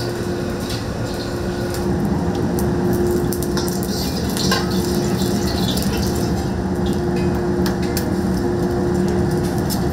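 Busy Chinese-restaurant kitchen during wok cooking: a steady hum with scattered metal clinks and scrapes of utensils against pans.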